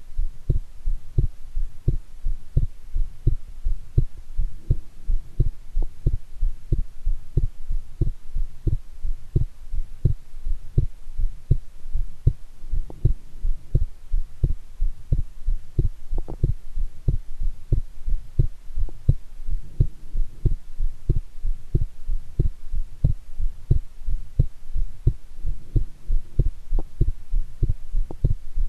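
A person's own heartbeat, pounding strongly after a shower: a steady, regular run of low lub-dub thumps, a few each second.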